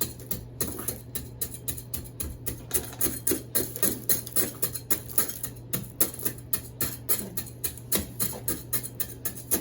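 Clumps of soil being crumbled and broken up by hand, a quick irregular run of crunching, pattering sounds, several a second.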